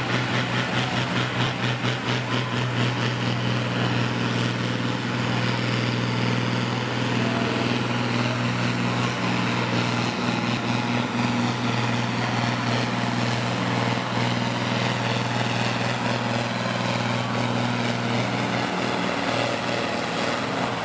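Farm tractor engine running at full throttle under heavy load while pulling a weighted sled, a steady, loud drone. A thin high whine rises over the first ten seconds and then holds.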